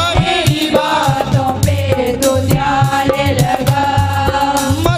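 Hindi Christian worship song music with a steady beat of drum hits and bass under sustained melodic lines.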